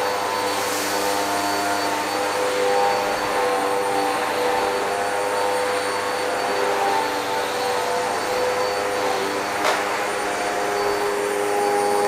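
Hoover WindTunnel Whole House Rewind upright vacuum running on its hard-floor setting over tile, a steady motor whine and rush of air, with one sharp click nearly ten seconds in.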